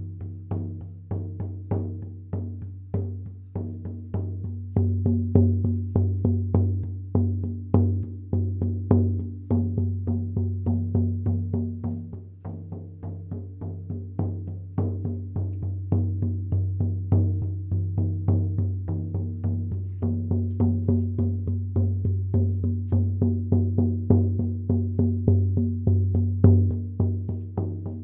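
Hide frame drum beaten steadily with a fleece-tipped beater, each stroke ringing out in a low booming tone. The hide has been dampened with a wet paper towel, which changes its sound.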